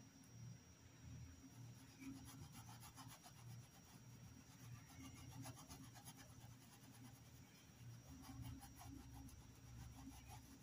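Very faint rubbing and scratching of a paintbrush's bristles stroking a cotton dish towel, in short spells, over a low steady hum.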